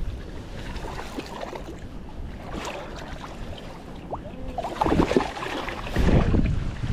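Wind buffeting the microphone over a steady rush of river water, with stronger gusts about five seconds in and again near the end.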